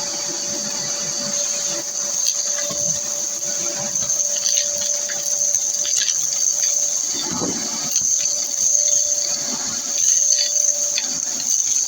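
Kärcher WD 2 Plus wet-and-dry vacuum cleaner running with a steady high whine, with irregular knocks and rattles throughout.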